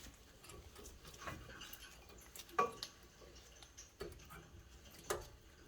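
A few scattered faint metallic clicks and taps: new front brake pads being slid and seated into the caliper bracket.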